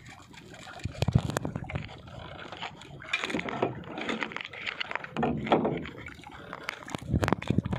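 Sea water lapping and splashing against the hull of a small outrigger boat, with knocks and scrapes of wood and fishing gear against the boat. The loudest knocks come about a second in and again near the end.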